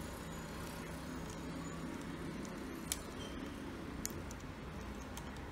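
Light handling of a DJI Osmo Action camera in its plastic waterproof housing: a few small sharp plastic clicks, the clearest about three and four seconds in, over a steady low hum.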